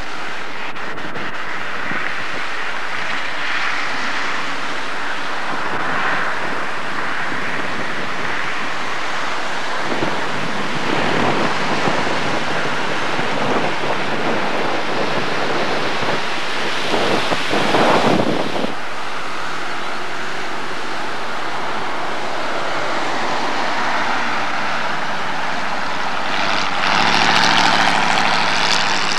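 Gusty wind buffeting the camcorder microphone, a steady rushing roar that swells about two-thirds of the way through. Near the end a vehicle passes on the road, its engine hum joining the wind.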